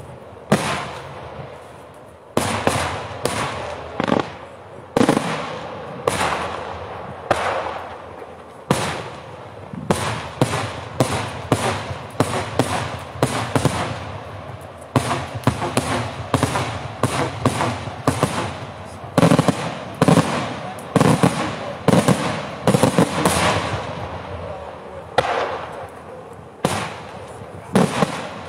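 Pirotecnica Cavour daytime salute shells bursting overhead in an irregular string of sharp bangs, each with a short crackling tail. The bangs come about one a second at first and grow much denser from about ten seconds in.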